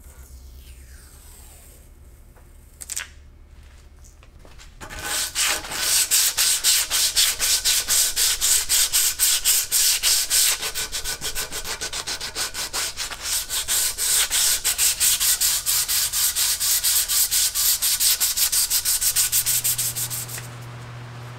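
Sandpaper rubbed by hand in rapid back-and-forth strokes along a new wooden axe handle, stripping off its factory lacquer. The sanding starts about five seconds in and stops shortly before the end.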